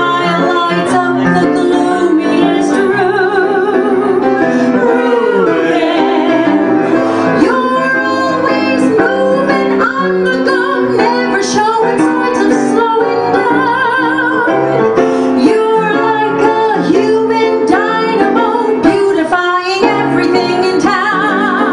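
A small vocal group of women and men singing a show-tune number together, a woman's miked voice in front, with live piano accompaniment; the held notes have a clear vibrato.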